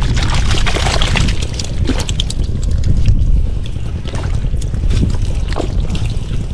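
Water splashing and sloshing in short irregular bursts over a steady low rumble of wind on the microphone.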